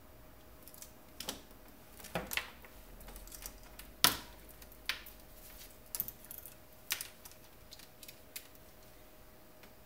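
Irregular sharp clicks and taps of small tools and parts being handled and set down on a workbench, the loudest about four seconds in.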